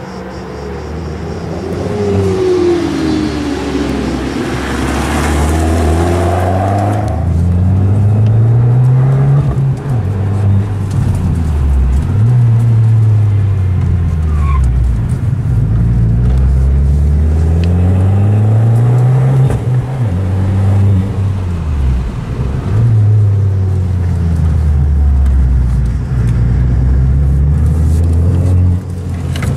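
Fiat 500 Abarth's turbocharged 1.4-litre four-cylinder engine breathing through a titanium exhaust, driven hard: the revs climb and fall again and again as the car accelerates and backs off.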